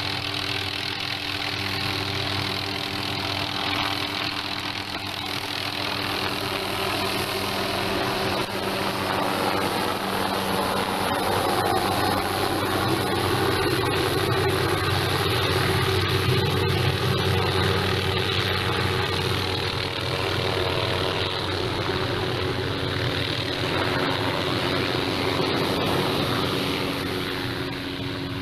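An engine running steadily: a low hum with a constant pitch that shifts slightly a couple of times, over a broad hiss.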